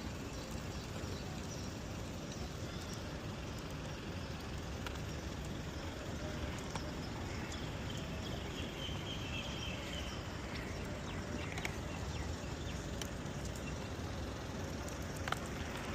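Steady city street background noise: a low rumble with faint scattered ticks.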